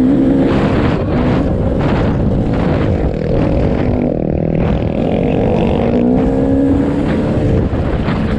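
A motor running, its pitch rising and falling a little, over a heavy low rumble.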